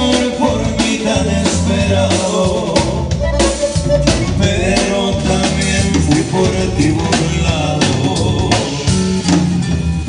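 A live band playing a norteño-style number: a button accordion carrying the melody over an acoustic guitar, a drum kit keeping a steady beat and a deep bass line, with a voice singing the tune.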